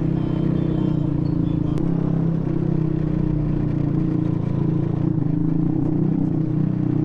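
Motorcycle engine running steadily with road and wind noise, heard from the rider's seat while riding in traffic.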